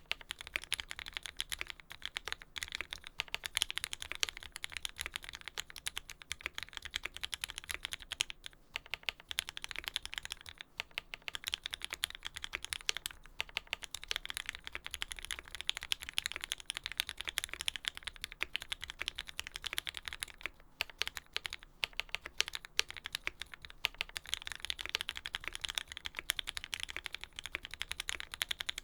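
Continuous fast typing on a custom mechanical keyboard: lubed linear Tealios V2 switches with Cherry top housings in an aluminium-plate Lyn Special Whale with GMK keycaps, giving dense keystroke clacks with a few brief pauses.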